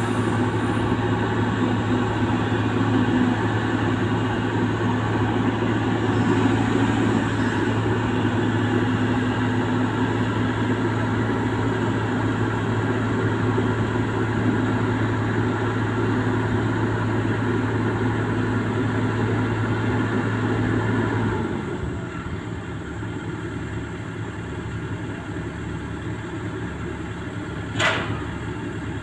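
A large engine running steadily, loud at first. About three-quarters of the way through it settles to a quieter running sound, and a brief sharp hiss-like sound comes near the end.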